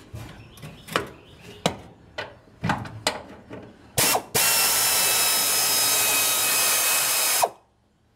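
Pneumatic air impact wrench working on a half-inch bolt of a radiator cross brace: a short burst about four seconds in, then a steady run of about three seconds that cuts off suddenly. Before it come several sharp metal knocks and clinks as the tool is fitted.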